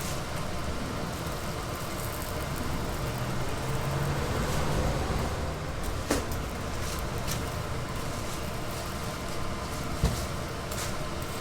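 Steady rushing sizzle of youtiao deep-frying in a wok of hot oil, with a low hum under it and two sharp knocks, about six and ten seconds in.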